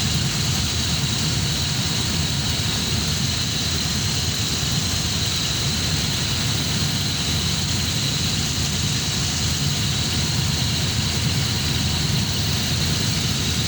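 Steady machine drone of a running chiller: a low hum with a thin high whine over it, unchanging throughout.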